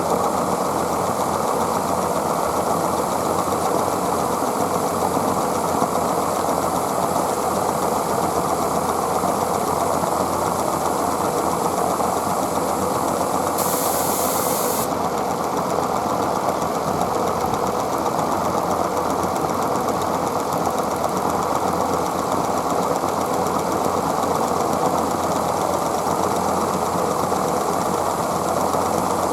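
Gauge 1 live steam model locomotive (Aster West Country) running in steam, a steady rapid mechanical clatter and exhaust beat. A brief hiss cuts in about fourteen seconds in and stops just over a second later.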